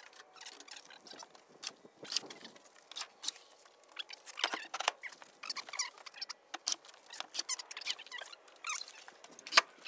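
Irregular clicks, clacks and scrapes of Versetta Stone manufactured-stone panels being picked from a stack and test-fitted against the wall, with the light jangle of tool belts.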